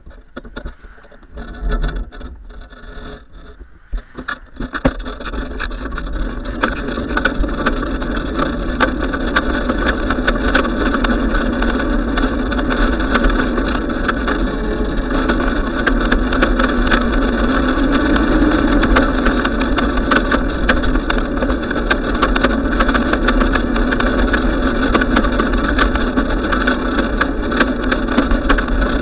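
Wind rushing over a bicycle-mounted camera's microphone, with the rumble and rattling clicks of the bike rolling over pavement. Quieter with scattered clicks at first, it becomes a steady loud rush about five seconds in.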